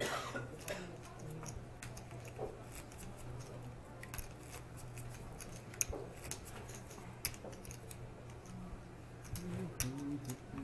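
Scattered sharp clicks of poker chips being handled and stacked at a poker table, over a steady low room hum.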